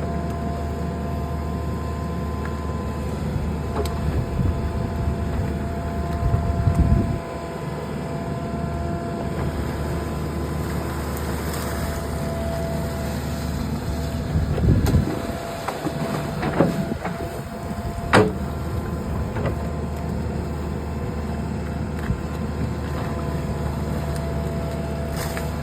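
Backhoe engine running steadily, with a few louder stretches of clatter about seven and fifteen seconds in and a single sharp knock about eighteen seconds in.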